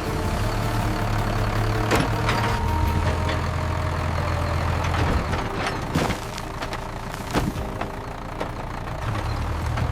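Tractor engine running steadily with a low hum, with several sharp knocks and clanks over it.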